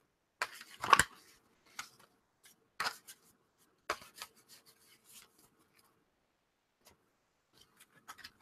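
A deck of oracle cards being shuffled by hand: a series of short, crisp card-on-card riffles and slides, the loudest about a second in, thinning to a few faint rustles after about four seconds.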